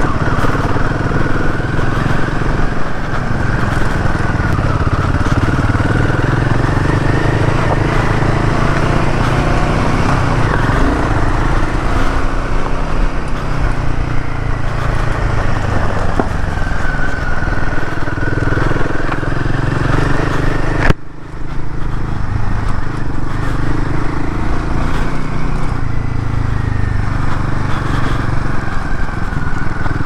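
Royal Enfield Himalayan 450's single-cylinder engine running on a rough trail, its pitch rising and falling as the throttle opens and closes. A sharp click about two-thirds of the way through, followed by a brief drop in level.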